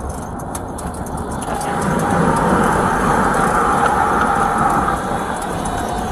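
Engine and road noise inside a moving police patrol car. It swells about a second and a half in, with a faint steady whine, and eases off again about five seconds in.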